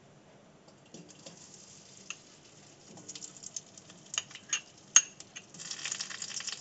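Solid ghee going into a hot metal kadhai: scattered light taps and clicks against the pan, a sharp clink about five seconds in, then the ghee beginning to sizzle and crackle as it melts near the end.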